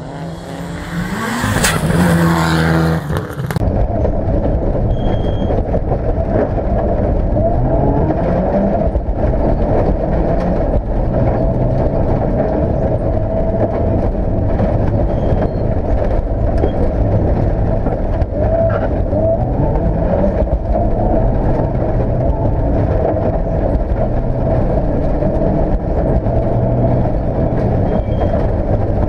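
Rally car engine heard from inside the cabin at speed, rising and falling in pitch as it revs up through the gears and drops back. For the first few seconds it is instead a rally car revving as it approaches, heard from the roadside.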